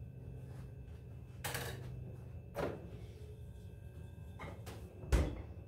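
Mini fridge door opened and shut, with a few separate clunks of handling and a heavy thump about five seconds in as it closes, over a low steady hum.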